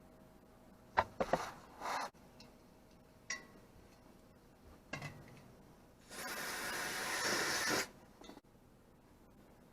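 Workshop handling during a motorcycle gearbox oil change: a few sharp clicks and knocks of tools and parts, a short scrape, then a steady hiss lasting under two seconds.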